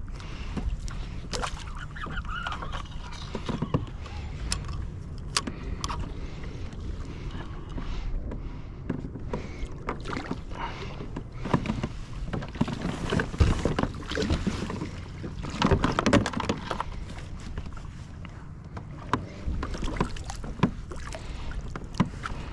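Water sloshing and lapping against a kayak hull as it moves across open water, with scattered knocks and clicks from handling the rod and gear, the loudest a few seconds past the middle.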